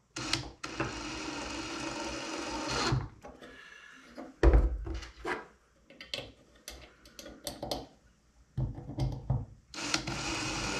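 Cordless drill with a Phillips bit driving 1-inch drywall screws into wood. The motor runs steadily for about two seconds, then come a few seconds of scattered knocks as the screw is handled, and then a second run near the end.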